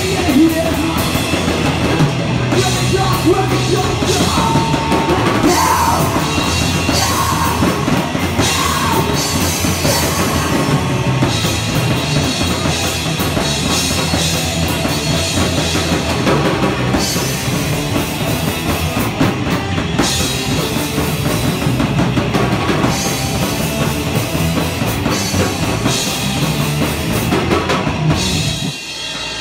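Live rock band playing loud, with a full drum kit driving it; the song ends abruptly just before the end.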